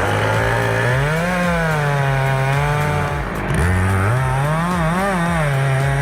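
Chainsaw running hard while cutting wood. Its engine pitch climbs, sags and climbs again, with a brief dip about three and a half seconds in.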